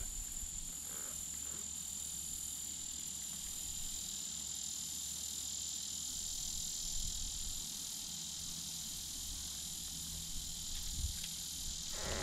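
A steady high-pitched chorus of insects, with one thin high note among them that fades about halfway through, over a low rumble.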